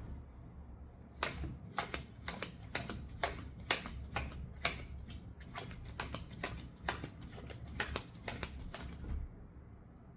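A deck of cards being shuffled by hand: a quick, irregular run of sharp card snaps, about three a second, that stops about nine seconds in.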